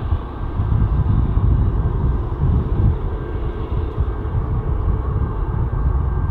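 Jet engines of a Boeing 737-8 MAX (CFM LEAP-1B turbofans) running at low power as the airliner taxis after landing, heard from afar: a steady, uneven low rumble with a faint high whine.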